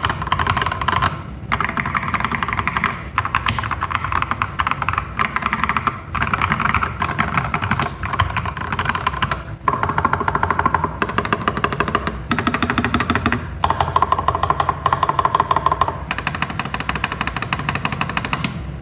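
Fast typing on a mechanical keyboard with Prevail Epsilon linear switches, lubed and filmed: a dense run of key clacks in spurts, with short pauses between them. The clacks are fairly low-pitched.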